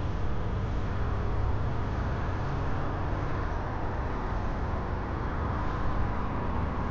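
Steady city street traffic noise: vehicles running along the road with a continuous low rumble.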